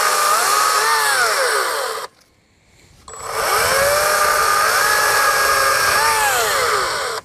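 Harbor Freight Atlas 40V 16-inch brushless battery chainsaw cutting into a tree. Its motor whine stops about two seconds in, then starts again and climbs slowly up to speed, the soft start of this saw. The whine winds up higher when the chain takes load in the wood, then drops, and cuts off at the end.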